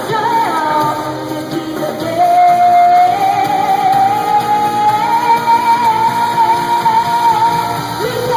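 Live pop music with a female singer holding one long, high note from about two seconds in until near the end, over the band.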